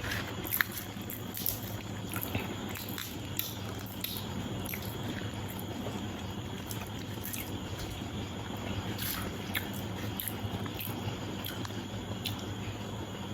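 A person eating biryani: chewing and small clicking mouth and food sounds, scattered irregularly, over a steady low hum.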